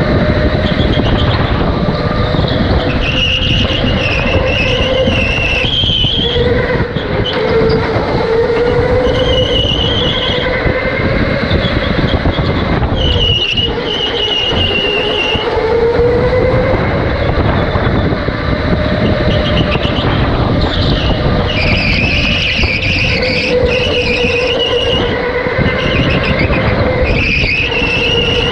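Electric go-kart driven hard, heard from the seat: the motor's whine wavers up and down with speed over a steady rumble, and the tyres squeal in repeated bursts through the corners.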